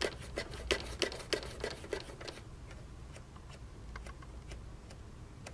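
Control knobs on a Tektronix TDS 210 oscilloscope clicking as they are turned, about four clicks a second for the first two seconds, then a few single clicks.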